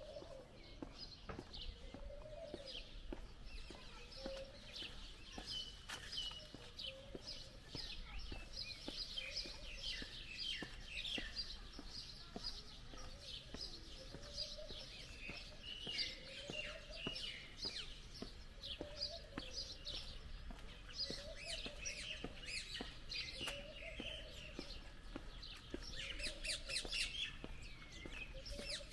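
Many small birds chirping and singing, quick overlapping chirps throughout, with a lower call repeating about every two seconds.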